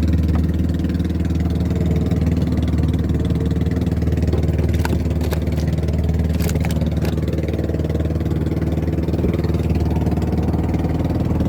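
Boat engine running steadily at a constant speed, with a few short knocks about halfway through.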